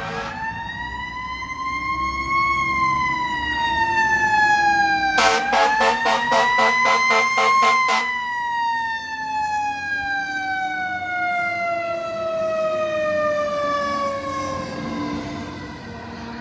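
Siren on a 2010 Spartan Gladiator fire truck responding, rising and falling in long slow wails. A rapid run of pulsing horn blasts comes in for about three seconds in the middle, and after it the siren winds down in one long falling wail as the truck passes.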